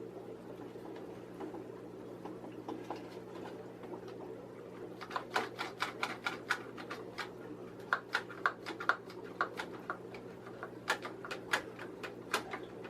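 A clamp being tightened on the wooden rack's boards: a run of short, sharp clicks and knocks in irregular clusters, starting about five seconds in, over a steady low hum.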